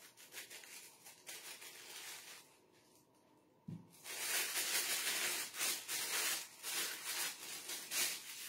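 Thin plastic piping bag crinkling and rustling as it is filled with sauce and handled, faint at first and louder and busier from about four seconds in, with a soft bump just before.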